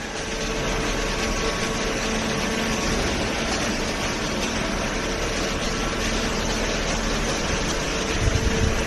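Hydraulic baler's motor and pump running steadily, a constant mechanical hum with a faint whine in it; some low thuds come in near the end.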